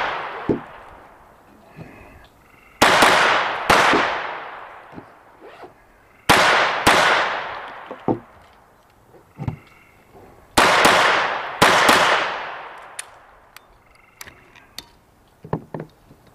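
Handgun shots at an outdoor range: six loud reports in three pairs, each with a long echoing tail, and a few fainter sharp cracks in between.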